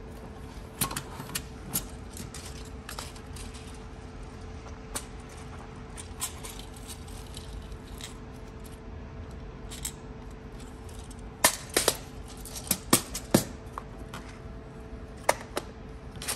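Clear plastic compartment boxes of nail charms and rhinestones being handled and set down: scattered light clicks and clacks of plastic, with the small metal charms clinking inside. A run of louder knocks comes about twelve seconds in, over a faint steady hum.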